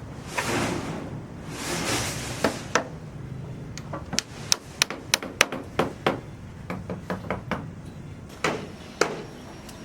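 Irregular sharp knocks and clacks, about a dozen of them, after two brief whooshing noises.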